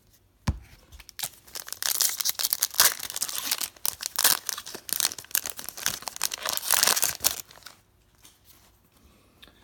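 A foil hockey-card pack wrapper being torn open and crinkled, a dense crackling that runs about six seconds, after a single sharp tap about half a second in.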